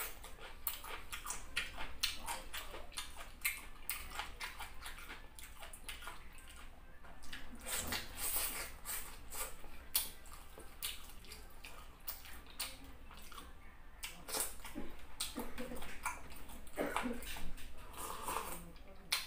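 Close-miked eating sounds: wet chewing, lip-smacking and finger-sucking as chicken in soup is eaten by hand, a steady stream of small clicks and squelches. Near the end there is a sip of soup from a small glass.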